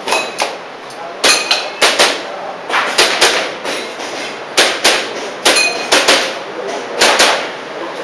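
Airsoft pistol shots fired in quick pairs and short strings during a practical shooting stage, some followed by a brief metallic ringing as pellets strike steel targets.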